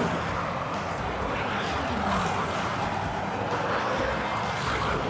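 Cars passing on a two-lane road, a steady hiss of tyres and engines.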